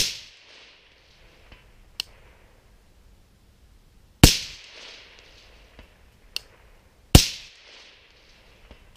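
Three shots from a suppressed AR-15 SPR (18-inch 5.56 upper with a SilencerCo Omega suppressor) firing 55-grain rounds, the second about four seconds after the first and the third about three seconds later, each with a short fading echo. Two much fainter sharp ticks fall between the shots.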